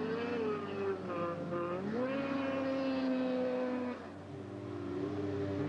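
Snowmobile engines running at high revs. The pitch wavers, then climbs to a held high note about two seconds in. The sound drops off suddenly about four seconds in, and another sled's engine comes up as it skims across open water.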